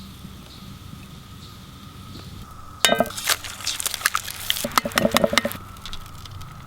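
Cooking utensils and cookware clinking and clattering against each other: one ringing clink about three seconds in, then a couple of seconds of quick clicks and clatter that stop near the end.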